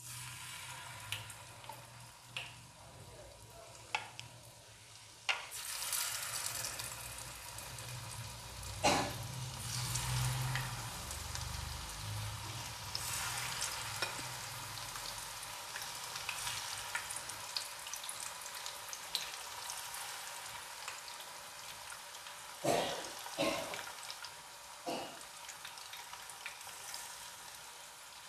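Marinated chicken pieces deep-frying in hot oil in a kadai, a steady sizzle that swells about five seconds in. A few sharp clicks break through it now and then.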